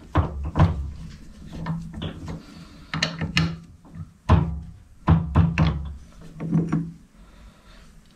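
Metal clunks and clicks from a four-jaw lathe chuck as its jaws are loosened with a chuck key and the cylinder cover casting is taken out: a string of sharp, uneven knocks that stops about seven seconds in.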